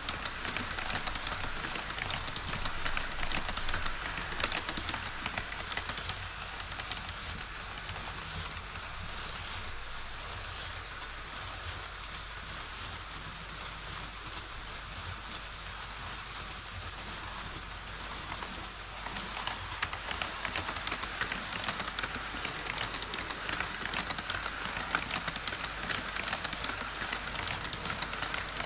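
HO scale model train running on KATO Unitrack: a steady fine clatter of wheels over the rails and joints. It is quieter through the middle and grows louder again about two-thirds of the way through.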